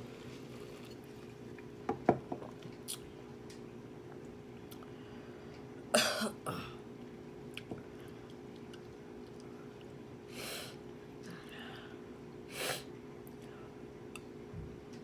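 A woman clearing her throat and coughing a few times as she strains to bring up a stuck burp that doesn't come. A few sharp knocks about two seconds in, and a loud throaty cough about six seconds in.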